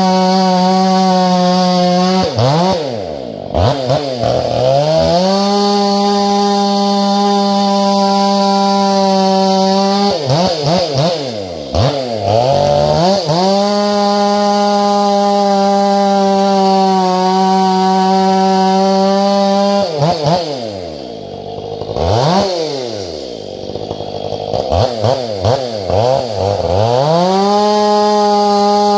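Chainsaw running square-ground chain, held at high revs for long steady stretches, three times dropping off throttle to a low idle with quick blips of the throttle before revving back up to full speed.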